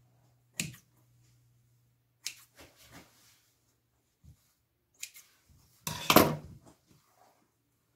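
Kitchen scissors snipping off excess raw yeast dough, a few short sharp cuts spread over the first five seconds, then a louder clatter about six seconds in as the scissors are put down.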